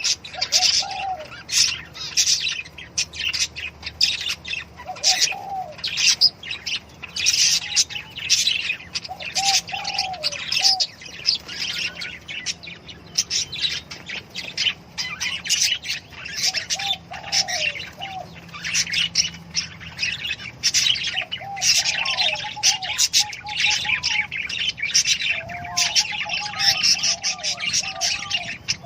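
A flock of small pet parrots (sold as "love birds") chirping without a break, many short, high calls overlapping. A lower warbling call rises through the chirping every few seconds, more often near the end.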